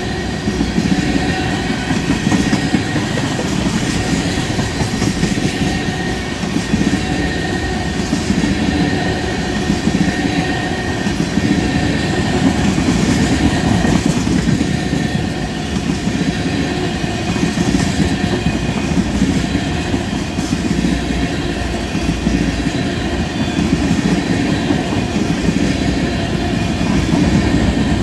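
Tank cars of a freight oil train rolling past close by in a steady, loud rumble, their steel wheels clacking over the rail joints. A faint thin high tone runs through the whole passage.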